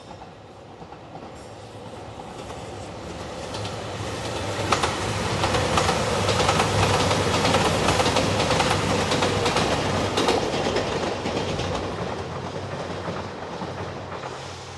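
A train passing close by. It is heard approaching, is loudest in the middle with wheels clacking over the rail joints, and fades as it moves away.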